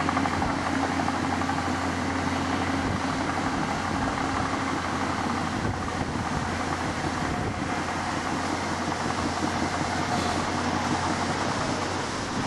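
Diesel engines of two tracked excavators and a crawler dozer running steadily at work, a continuous low drone, with blustery wind crackling on the microphone.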